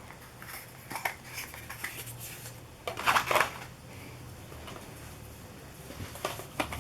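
Handling of small jars of glitter stencil paste: scattered light clicks, taps and scrapes as jars and lids are moved and set down, with a louder burst of handling noise about three seconds in.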